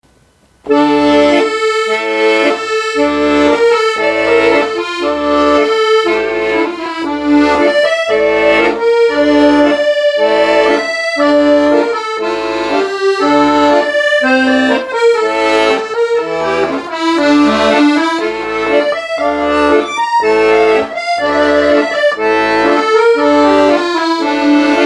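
Solo accordion playing the intro of a song: a melody in the right hand over a steady, regularly repeating left-hand bass and chord accompaniment, starting just under a second in.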